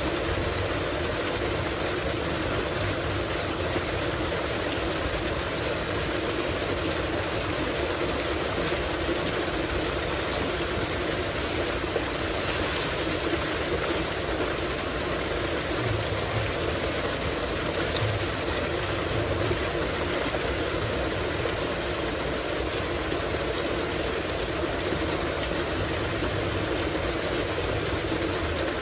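A tubewell's large outlet pipe pours a heavy, steady stream of water into a concrete tank, over an even drone from the pump.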